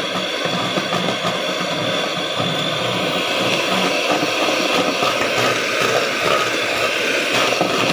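Electric hand mixer running steadily with a constant motor whine, its beaters whisking instant whipping cream in a stainless-steel bowl.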